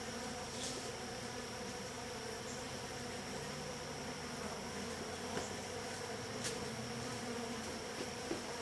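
Honeybees buzzing steadily around an open hive, with a few faint clicks.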